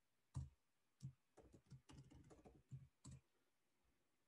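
Faint keystrokes on a computer keyboard as a password is typed: a few separate key presses, then a quicker run of them, stopping after about three seconds.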